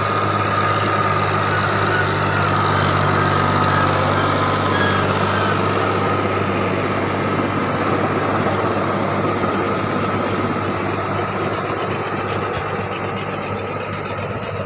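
Diesel tractor engine running steadily under load as it drives a rotavator through a flooded paddy field, churning the mud and water to puddle it for rice. It grows fainter over the last few seconds as the tractor moves away.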